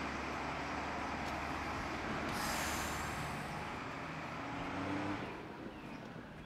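School bus engine running as the bus pulls away, with a hiss of released air brakes about two and a half seconds in; the engine sound fades near the end.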